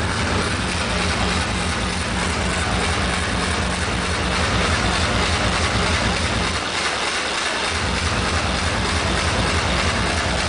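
Loud electronic dance music over a club sound system, with a pounding bass kick and dense, distorted highs. The bass drops out for about a second around seven seconds in, then returns.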